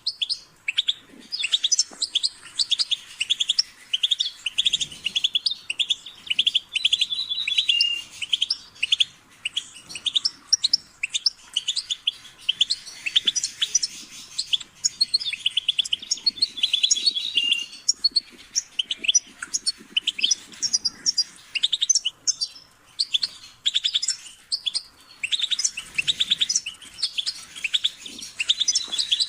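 European goldfinch singing: a long run of fast, liquid twittering and buzzy trills, broken only by brief pauses.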